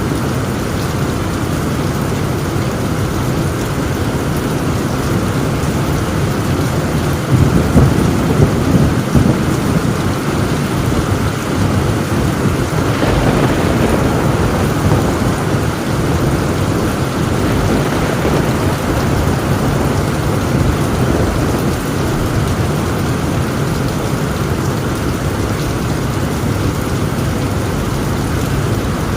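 Heavy rain drumming steadily on a tin roof, with a long roll of thunder rumbling in about a quarter of the way through and fading over several seconds.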